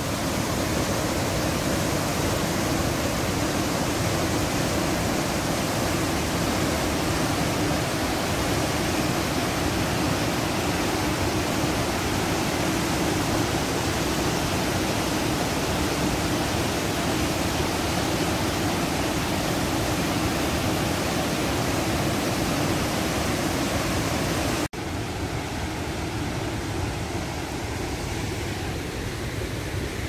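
Christine Falls cascading over rock, a steady rushing roar of falling water. About 25 seconds in it cuts off abruptly to a quieter, duller steady rush.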